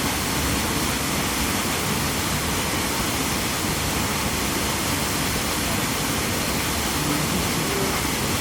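Waterfall's falling water rushing steadily and evenly, a constant loud roar of noise with no breaks.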